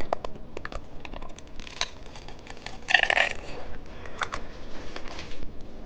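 Plastic candy packaging handled and opened by hand: scattered sharp clicks and taps with short crinkly rustles, the loudest rustle about three seconds in.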